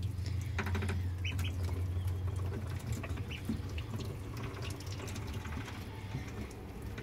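Ducklings pecking and tearing at chopped dandelion greens: a busy patter of small clicks and rustles, with a few short peeps about a second in.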